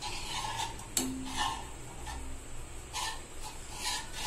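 Steel ladle stirring ground black rice paste in a stainless steel pan, scraping and tapping lightly against the pan a few times. One clink about a second in rings briefly.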